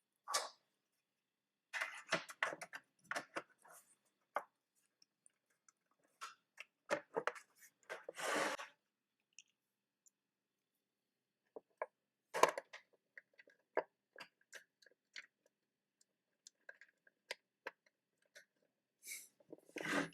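A DVR's outer casing being fitted and its screws fastened with a small crosshead screwdriver: scattered clicks, taps and short scrapes, with silent gaps between them.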